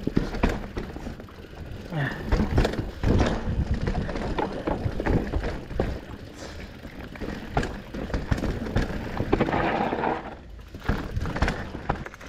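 Mountain bike riding over rough dirt trail: frequent irregular knocks and rattles from the bike's frame, chain and suspension over bumps, over a steady rush of tyre and wind noise, with a stretch of louder hiss a little before ten seconds in.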